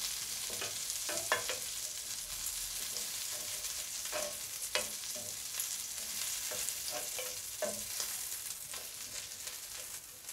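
Food sizzling in hot oil in a frying pan, with a spatula stirring and scraping against the pan now and then.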